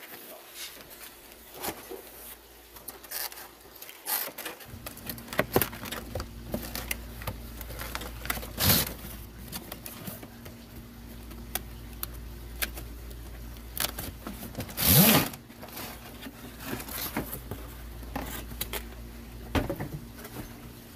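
Cardboard packaging being handled as a toy RC truck's box is opened: flaps and inner cardboard scraping and sliding, with scattered clicks and taps. The loudest scrapes come at about 9 seconds and about 15 seconds in.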